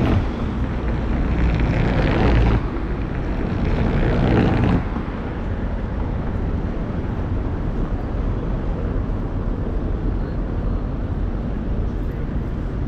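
Cars passing close by on a cobblestone street, the tyres loud on the cobbles; the passing noise stops abruptly about five seconds in, leaving a steady low hum of city traffic.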